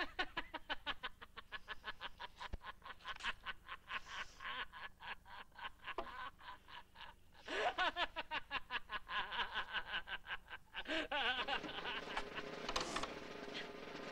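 A man laughing loudly and heartily in a fast run of short ha-ha pulses; the laugh breaks off and starts again about seven and a half seconds in, running on more continuously near the end.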